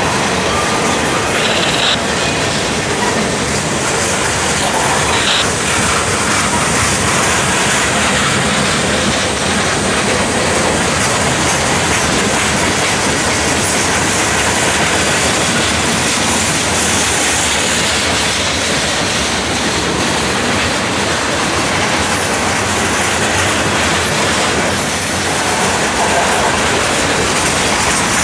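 Boxcars and covered hoppers of a freight train rolling past close by: a steady, loud rumble and clatter of steel wheels on the rails. A couple of brief, high wheel squeals come in the first few seconds.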